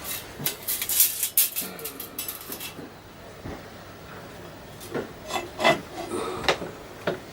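Hard objects being handled and moved about: a run of rattling clicks and scrapes over the first three seconds, then a few separate knocks.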